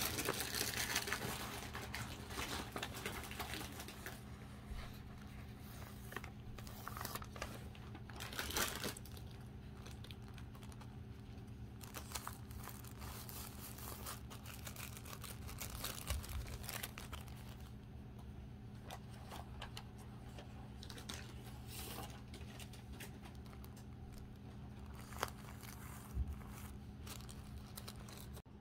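Thin plastic treat bags crinkling and rustling in irregular bursts as hands handle them, over a steady low hum.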